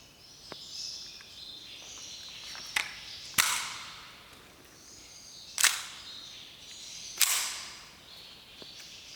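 Umarex Colt 1911 Classic 4.5 mm CO2 air pistol firing three shots about two seconds apart, each a sharp crack that dies away over a fraction of a second, with a lighter sharp click just before the first shot. Birds chirp in the background throughout.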